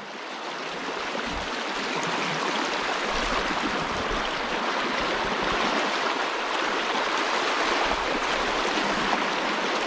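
Shallow, fast-flowing river: a steady rush of running water that fades in over the first couple of seconds.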